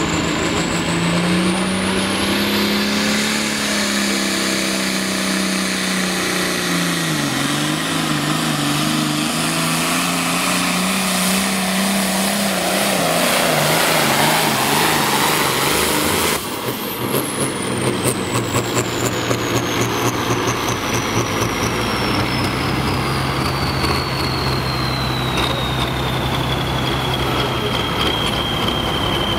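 John Deere Pro Farm pulling tractor's turbocharged diesel at full throttle dragging the sled, its engine speed rising and falling with a high turbo whistle. About sixteen seconds in, the throttle drops off suddenly at the end of the pull: the engine falls to a low, steady idle while the turbo whine winds down in a long falling glide.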